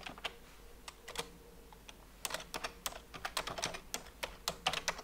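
Computer keyboard keys being typed: a few scattered taps finishing a login name, then a quicker run of keystrokes as a password is typed in.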